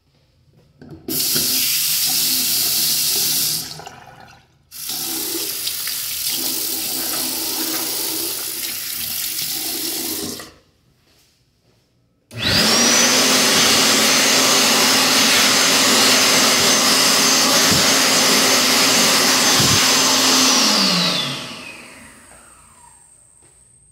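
A faucet runs water into the sink in two spells. Then a World Dryer SLIMdris hand dryer starts, blows steadily with a high whine for about eight seconds, and winds down with a falling whine as it shuts off.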